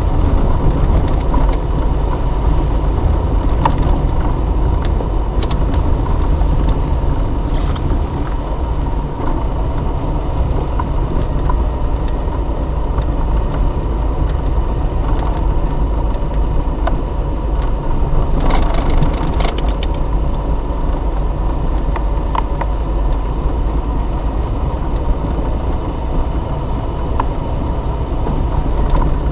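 Car driving on a snowy road, heard from inside the cabin by a dashboard camcorder: steady engine and road rumble with a thin steady whine and occasional knocks from bumps.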